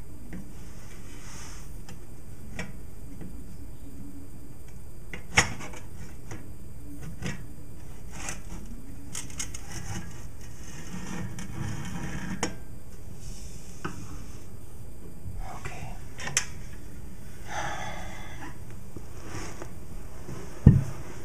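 White slatted wall vent grille being worked loose and pulled off its duct opening: scattered clicks and scrapes of the grille against its frame, a sharp click about five seconds in, and a louder knock near the end.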